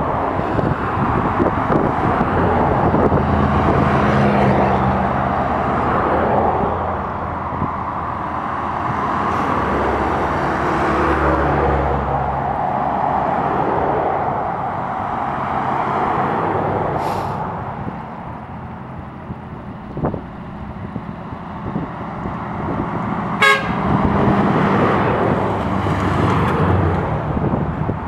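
Cars in a parade, several of them classic American cars, driving past one after another, each engine swelling and fading as it passes. A short car horn toot about two-thirds of the way through.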